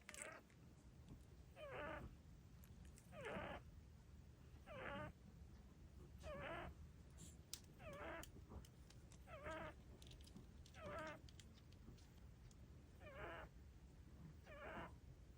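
Chihuahua puppy snoring in its sleep: short, high, squeaky snores about every one and a half seconds, around ten in all, with a longer pause a little past the middle.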